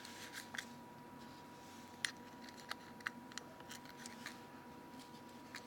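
Faint, scattered small clicks and ticks of fingers handling a smartphone's plastic case and fitting tiny threaded screws into its corners.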